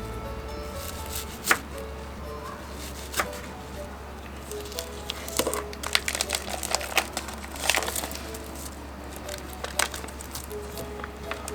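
Scattered knocks and taps of kitchen prep work on a wooden cutting board, a few at first and then a busier cluster partway through, over soft background music.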